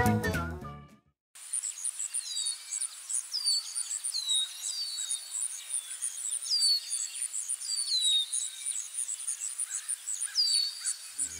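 Background music fades out in the first second, then a nature ambience: birds calling in short downward-sliding chirps over a cricket's steady, rhythmic high pulsing.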